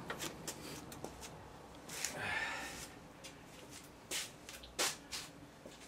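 Faint clicks and handling noises as hands work the throttle linkage and its clip on an outboard motor whose magneto plate is seized, with two sharper clicks about four and five seconds in. A short breathy rushing noise comes about two seconds in.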